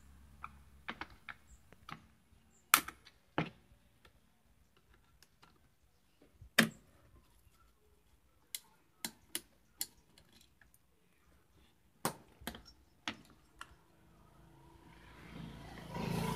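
Scattered small clicks and taps of a screwdriver working the screws of an induction cooker's circuit board inside its plastic case, with two louder knocks, one about three seconds in and one near seven seconds. Near the end, a rising scrape and rustle as the board is handled and lifted out.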